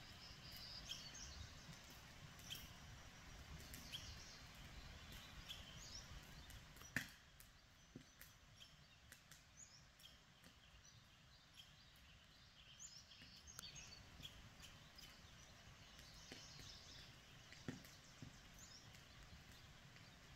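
Faint birdsong, with scattered short chirps and calls from several birds over low background noise. A single sharp click comes about seven seconds in, and a smaller one near the end.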